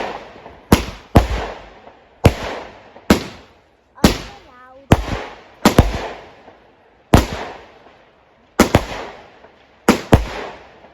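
Fireworks going off in quick succession: about a dozen loud bangs, each dying away in a short echoing tail.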